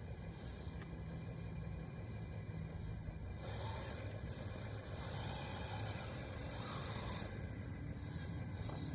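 Radio-controlled DXR2 bulldozer running on wide tracks, its motors humming steadily as it pushes and scrapes through dirt, with short gritty scraping spells twice.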